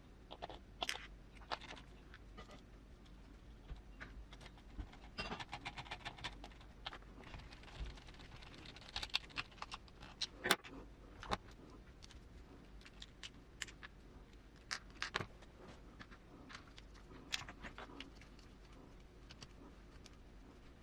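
Faint, scattered clicks and light taps of small plastic and metal parts and a hand tool being handled while a wheel and tire are fitted to an RC crawler's axle. A quick run of ticks comes about five seconds in, and a few sharper clicks around ten to eleven seconds.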